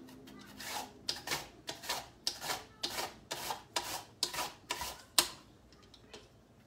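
Red onion pushed back and forth in a hand guard across a mandoline's julienne blade, a rasping slice at about three strokes a second. The strokes stop with a sharper knock about five seconds in.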